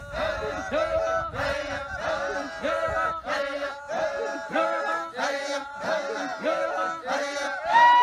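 A group of voices singing a rhythmic chant in short, repeated phrases, about two a second.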